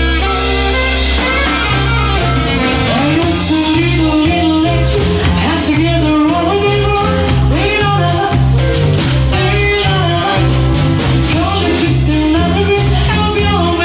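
Jazz band playing: a bass line changing notes about twice a second and drums under a melody line.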